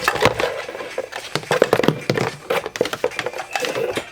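Hard plastic electronic sewing machine foot pedal controllers and their cords being handled and knocked against one another: an irregular run of clicks and knocks.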